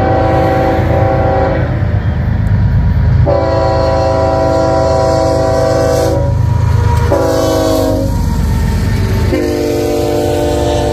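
A diesel locomotive horn on a Union Pacific GE freight locomotive sounding the grade-crossing signal: a long blast ending about a second and a half in, a second long blast, a short one, then a last long one that carries on. Underneath is the steady rumble of freight cars rolling past.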